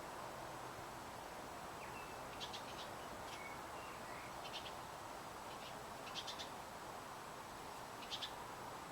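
Faint bird calls: several short clusters of quick, high chips, a few seconds apart, with a few brief thin whistles among the first ones, over a steady background hiss.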